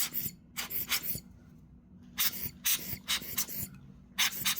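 Short puffs of air hissing in quick clusters, blown at a camera to clear dust out of it.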